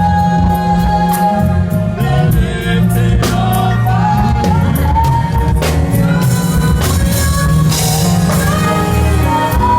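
Live gospel band playing with drum kit and bass while singers hold long sung notes.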